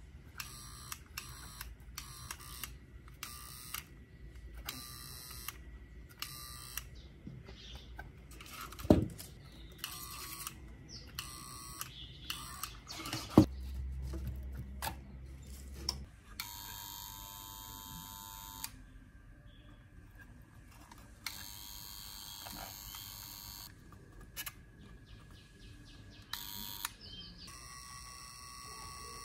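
Soldering-iron tips sizzling in short repeated bursts as they melt solder joints on a circuit board, with two sharp knocks a few seconds apart partway through.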